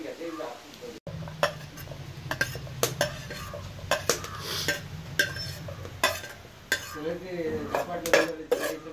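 Metal spoon clinking and scraping against a frying pan, stirring chopped onions in hot oil, with a light sizzle. The knocks come irregularly, several a second at times.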